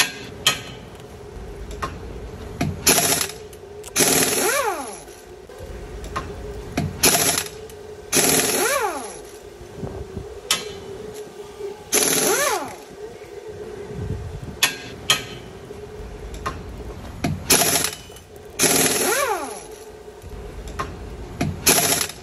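Electric motor of a Boom Racing BRX01 1/10 scale RC crawler whining up and then down in pitch with repeated bursts of throttle, each burst carrying a rough rushing noise, over a steady hum.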